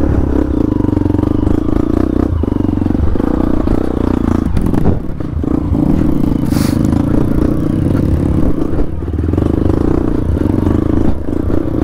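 Trail motorcycle engine running at steady, fairly low revs while riding, with a few brief clattering knocks over the ground.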